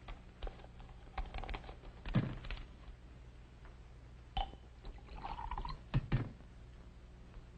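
Liquid poured into a glass, with a few small clinks and knocks of glassware, over a steady low hum.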